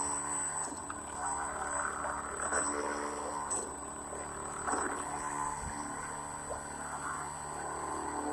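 Styrofoam remote-control boat driven by a model-airplane electric motor and propeller, running steadily with a motor whine.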